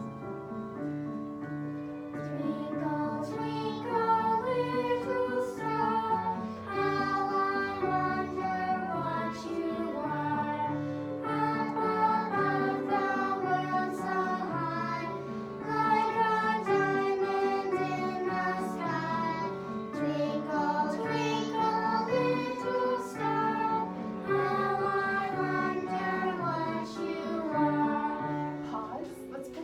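Children singing a simple song together over a piano accompaniment, the notes moving in even steps; it fades out at the very end.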